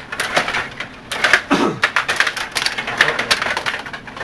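Stiga table hockey game in play: fast, irregular clicking and clacking of the rod-controlled players and the puck.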